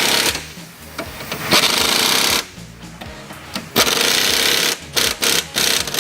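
Impact gun with a 13 mm socket, fired in three short bursts to run down the strut-top nuts, followed by a few sharp clicks.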